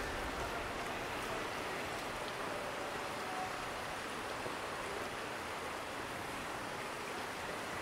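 Steady, even wash of outdoor ambient noise, with faint voices of passers-by blended into it.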